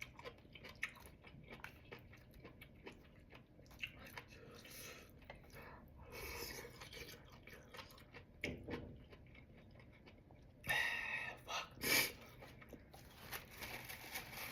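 A person chewing and biting food close to the microphone, with many small wet mouth clicks. There are a few louder bursts of sound about eleven to twelve seconds in.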